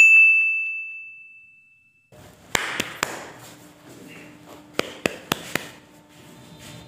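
A single bright, bell-like ding sound effect, struck once and ringing away over about two seconds, marking a scene transition. After it comes quiet room noise with a few sharp clicks and taps.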